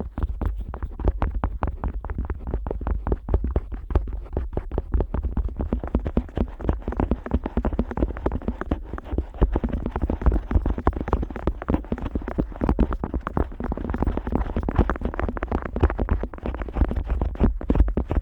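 An otoscope rubbing and tapping against the rubber outer ear of a Neumann KU100 dummy-head microphone, heard close up from inside the ear: a dense, unbroken run of quick scratchy rubs and soft taps, several a second.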